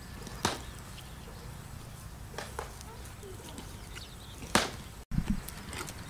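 Sharp clicks and cracks from a green bamboo pole as a whole plucked chicken is threaded onto it as a spit: three clicks about half a second, two and a half seconds and four and a half seconds in, the last the loudest, then a dull thump just after five seconds, over a low steady rumble.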